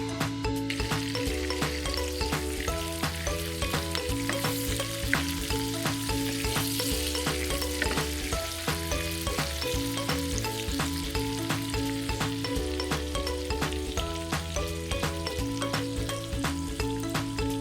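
Food sizzling as it fries in a pan, with many short clicks and scrapes of stirring throughout. Background music with a steady bass line plays underneath.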